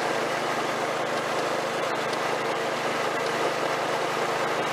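Snapper rear-engine riding mower's engine running at a steady speed while the mower drives along.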